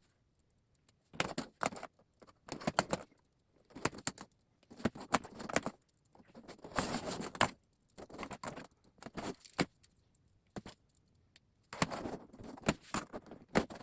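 Sections of Lionel three-rail O-gauge toy train track being handled and pushed together. They give irregular bursts of clicks and rattles, with short pauses between.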